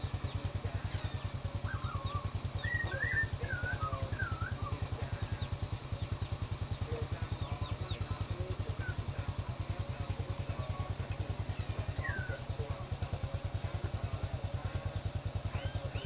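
A small engine running steadily at idle, an even, rapid low throb, with small birds giving a few short whistled chirps over it, mostly a couple of seconds in and again about twelve seconds in.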